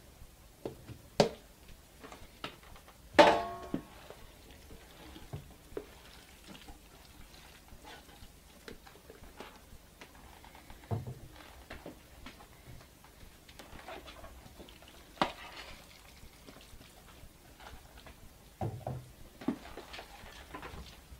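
Scattered knocks and clatters of bowls and metal grinder parts being handled, with one loud ringing clatter about three seconds in; no motor is running.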